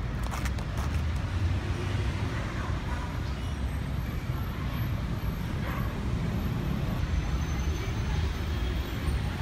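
Steady low rumble of distant road traffic, with faint voices here and there.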